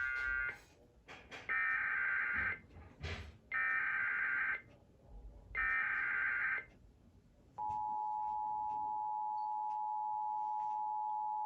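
Emergency Alert System SAME header data bursts: short buzzy one-second bursts of digital tones about a second apart. About seven and a half seconds in, the steady two-tone EAS attention signal begins and holds, announcing a new warning.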